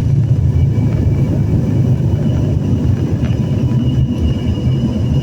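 Jet airliner cabin noise heard from a seat behind the wing: the engines and airflow make a loud, steady low rumble with a faint steady high whine over it.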